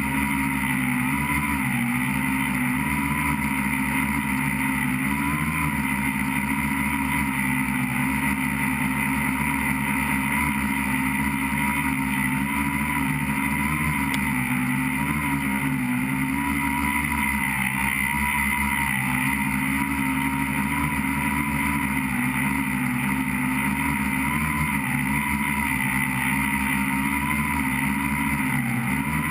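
Electric motors and propellers of an FPV tricopter, heard from its onboard camera, running as a steady, loud whine. The pitch dips and rises every few seconds as the throttle changes.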